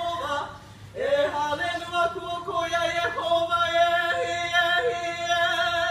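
A voice singing a Hawaiian-language hula song in long held notes with sliding pitch, with a short break about a second in. The singing stops right at the end, closing the song.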